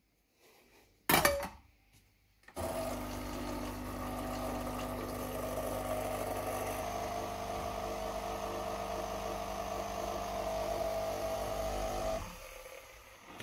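A glass cup clinks once about a second in. From about two and a half seconds in, the Philips Senseo pod coffee machine's pump hums steadily as it brews a coffee, then stops near the end.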